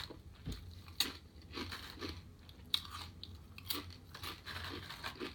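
Close-up chewing of a sandwich, with soft wet clicks and smacks of the mouth coming about once or twice a second.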